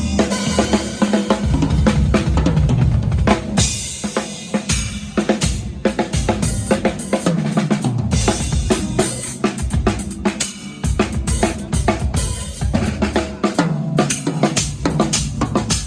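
Rock drum kit played fast at a sound check: bass drum, snare and cymbals in a dense, driving pattern, with low bass notes stepping up and down underneath.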